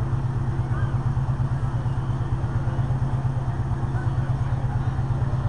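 Diesel engine of an AGCO DT200 pulling tractor running steadily at one speed, with an even rapid pulse and no revving, as it sits on the line before its pull.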